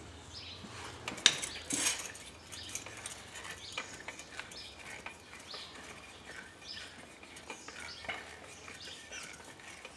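Metal clinks and light rattling from a car's scissor jack and its crank handle as the jack is set under the jacking point. Two sharper clinks come about a second in and near two seconds, then softer, scattered ticks.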